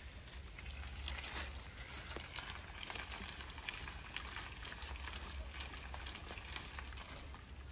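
Dry fallen leaves crackling and dry tamarind pods clicking together as they are picked up off the ground by hand: a run of light, irregular crackles.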